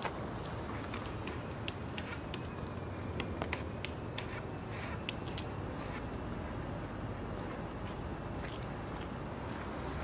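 Pileated woodpeckers pecking at ash tree bark: light, irregular taps and ticks, a few a second at the most, as they forage for ash borer larvae. A faint steady high insect drone runs underneath.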